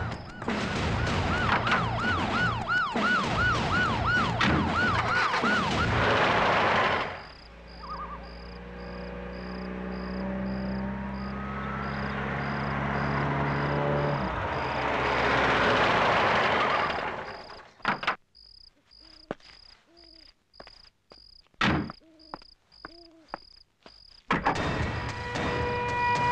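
Police siren wailing in quick repeated cycles, then a car engine running as the car approaches and passes, fading out. A high, evenly pulsed chirp runs beneath, a few sharp knocks follow, and background music comes in near the end.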